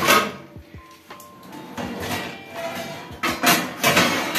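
Bronze (kansa) thali plates and metal utensils clinking and knocking against each other and a steel wire basket drawer as they are handled. There are sharp knocks near the start, about a second in, and a cluster around three to four seconds, over background music.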